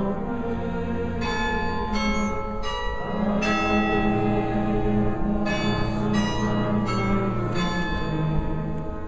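Brass band playing a slow hymn tune in sustained chords, the notes changing about once a second.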